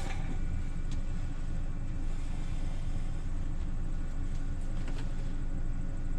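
Steady low rumbling hum, like a motor or machine running, with a couple of faint ticks.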